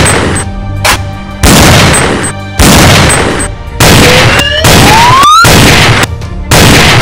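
Electronic toy-gun sound effects: a series of loud gunshot-like blasts, about one a second, each ringing off, with a rising whine about four seconds in, over background music.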